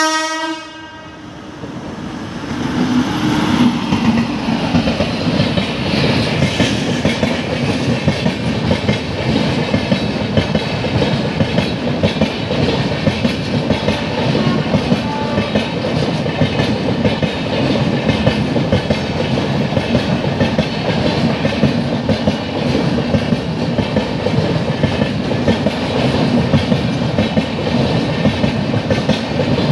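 A short blast of an electric locomotive's horn right at the start, then a long LHB-coach passenger express train passing close by at speed: a steady, loud rumble and clatter of wheels over the rails.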